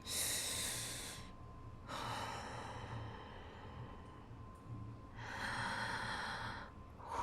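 A woman taking slow, deep breaths close to the microphone, drawing in and letting out air twice in a calming breathing exercise.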